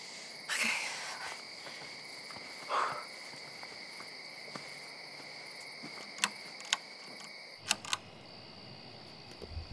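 Crickets chirping steadily as background ambience, with a rustle about half a second in and a few sharp clicks near the end. About three quarters of the way through, the cricket sound shifts to a thinner, different chorus.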